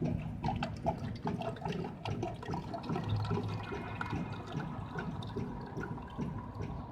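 Smoothie vending machine dispensing and mixing mango and kiwi into a cup: liquid gurgling and splashing with irregular clicks, and a faint steady whine from about halfway through.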